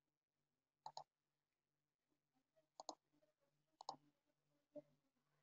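Near silence broken by four faint clicks about a second apart, the first three doubled, from a computer keyboard and mouse in use.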